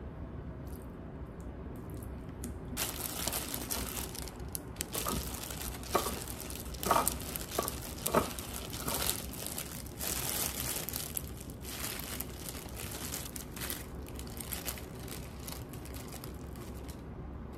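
Clear disposable plastic glove crinkling and rustling as a gloved hand mixes and squeezes cooked rice in a bowl. It begins about three seconds in, with a few louder rustles in the middle.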